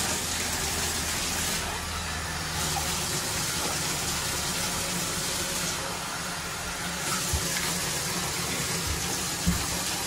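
Water running and splashing into a bathtub, a steady hiss, as a wet puppy is rinsed off with a cup, with a couple of soft knocks in the last few seconds.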